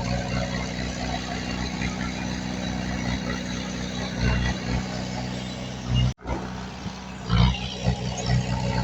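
Diesel engine of heavy earthmoving machinery running steadily, with low surges now and then. The sound cuts out for an instant about six seconds in.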